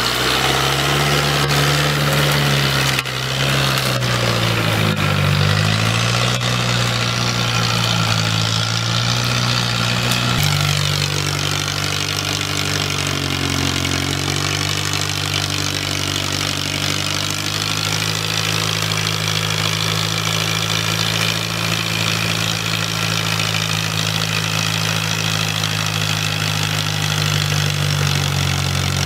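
Off-road truck's engine running hard under load while ploughing through deep mud and water. Its pitch dips and rises in the first several seconds, changes abruptly about ten seconds in, then holds fairly steady.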